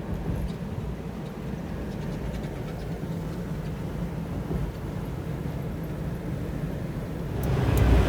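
Semi truck running: a steady low rumble of engine and road noise, growing louder near the end.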